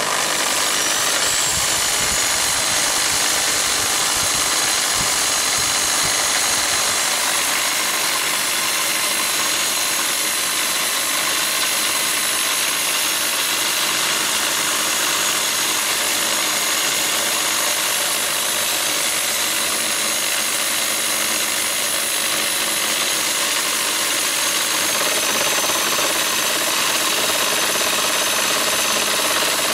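Bosch corded electric drill switched on and running steadily at speed, driving a lathe milling attachment's spindle and fly cutter. Its high motor whine rises in the first second, then holds level over a loud, even machine noise.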